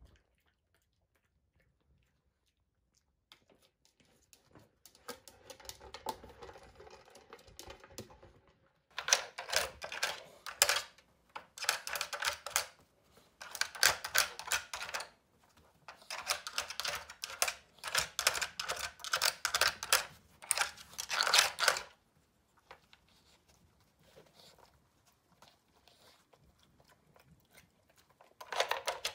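A dog nosing at the Nina Ottosson Dog Hide N Slide, a plastic puzzle feeder, as it hunts for treats. The sound is bursts of plastic clattering and rattling mixed with crunching, each a second or two long, starting about a third of the way in. Near silence comes first, and a quieter stretch comes before a last loud burst near the end.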